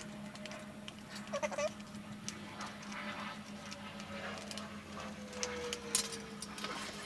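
A hobby knife scratches and clicks as it cuts through the sticker on a foam model-plane wing, over a steady low hum. Near the end come a few sharper clicks as tools are handled on a glass tabletop.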